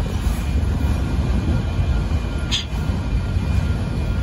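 Union Pacific autorack freight cars rolling past, a steady low rumble of steel wheels on rail, with a short high-pitched screech about two and a half seconds in.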